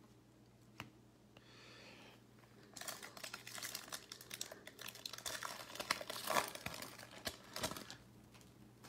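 Baseball card pack wrapper crinkling and tearing as it is ripped open by hand, a dense crackle that starts about three seconds in and dies away near the end.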